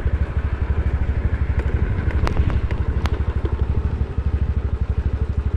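Motor scooter running as it rides along a road, its engine giving a steady rapid low pulsing, with two sharp clicks in the middle.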